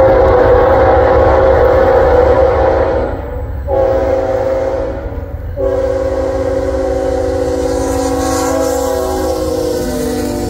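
Norfolk Southern freight locomotive's air horn sounding a long blast, a short blast, then a long blast. The chord drops in pitch as the locomotive comes past, over the low rumble of the engines and wheels.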